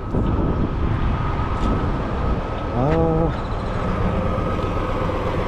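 Steady low rumble of vehicle engines and road noise, with a brief voice about three seconds in.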